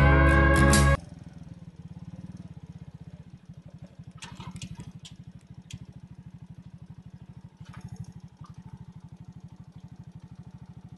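Guitar music cuts off about a second in, leaving a moped engine idling with a steady, even, fast putter.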